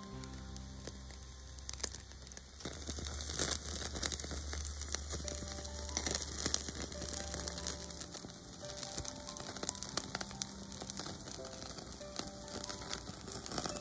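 Wagyu beef marrow bones sizzling and crackling on a wire grill over a charcoal fire, the crackle growing denser about two and a half seconds in. Light background music plays under it.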